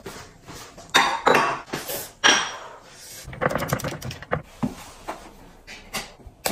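Ceramic kitchenware clattering: a ceramic ladle knocking against a bowl and the rim of the pot as a drink is ladled out, then plums tumbling out of a plastic colander onto a ceramic plate in a run of quick knocks.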